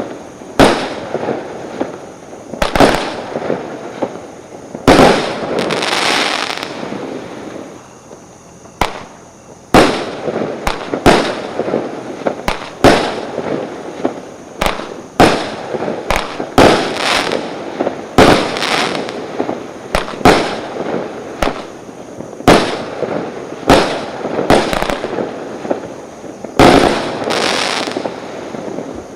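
A multi-shot consumer fireworks cake firing its shots in sequence: sharp bangs about once a second, some followed by crackling, with a short lull about a third of the way in.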